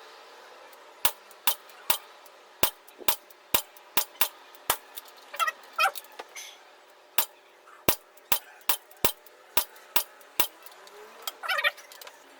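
Gamo PR-776 CO2 air pistol clicking sharply and repeatedly, about two clicks a second, in two runs with a pause of a couple of seconds between them.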